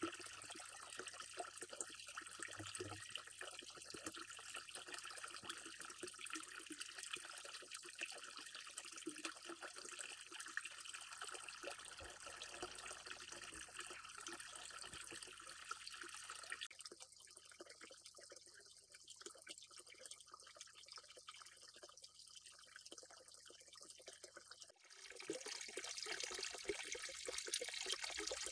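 Water trickling steadily into a garden pond. About two-thirds of the way through it thins to a fainter hiss, and a few seconds before the end it returns fuller and louder.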